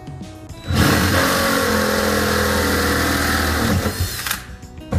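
Cordless drill boring a pilot hole through the bed-lined sheet-steel floor of a pickup bed: it starts about a second in, runs steadily for about three seconds with a motor whine under the cutting noise, then stops. Faint background music before and after.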